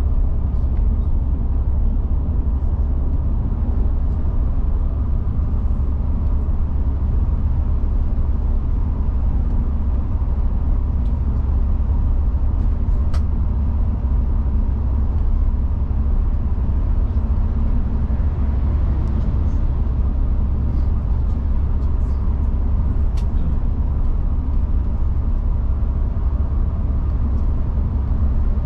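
Steady low rumble of a Mercedes-Benz Travego coach cruising at highway speed, heard from inside the front of the cabin: engine and tyre noise at an even level, with a few faint ticks.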